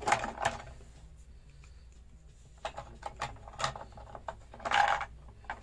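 Hard plastic toy parts of a Party Wagon toy van clicking and rattling as they are handled, with small plastic grenade pieces being put into it. A couple of clicks at the start, a quiet stretch, then a busier run of clicks and rattles, loudest near the end.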